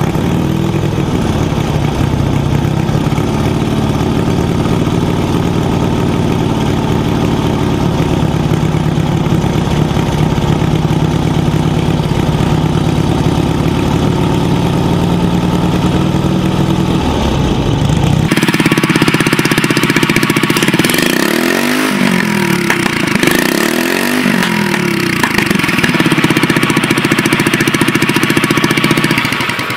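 Vintage V-twin motorcycle engine running steadily. About 18 seconds in, the sound cuts to a different motorcycle engine, revved up and down twice and then held at a steady, higher pitch.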